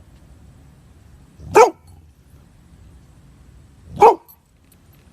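A dog barks twice, two short sharp barks about two and a half seconds apart.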